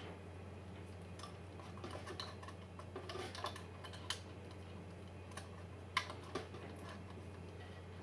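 Faint, scattered small clicks and taps of hands handling a CPU fan lead and its plug around the cooler on a motherboard, the sharpest about four and six seconds in, over a low steady hum.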